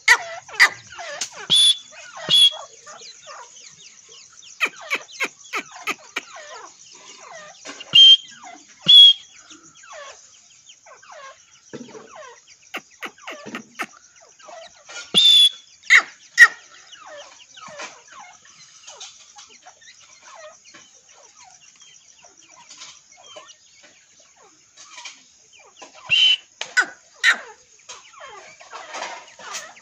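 Francolin hen giving soft, repeated clucking calls to her chicks while the chicks peep. A few louder, sharper calls stand out now and then.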